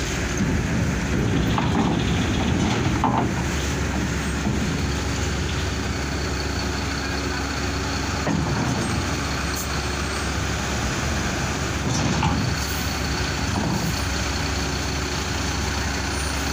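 Mercedes-Benz OH 1626 coach bus's diesel engine running at low revs as the bus creeps slowly onto a ferry's steel loading ramp, a steady low rumble with a few knocks along the way.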